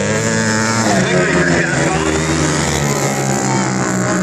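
Dirt-track racing motorcycles' engines running hard round the oval, several engine notes overlapping and their pitch rising and falling as the riders throttle through the turn.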